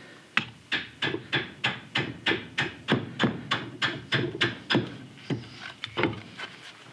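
Carving axe, held choked up, chopping green sycamore in a quick steady run of short strokes, about three a second, hollowing out a cup blank. The strokes stop about six seconds in.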